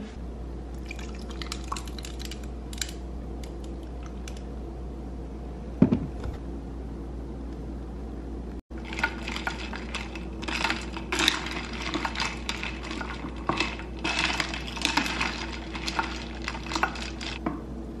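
Ice cubes clinking in a clear cup as iced coffee with milk is stirred with a glass straw: a few scattered clinks at first, a dull thump about six seconds in, then a dense run of rapid clinking through the second half, over a steady low hum.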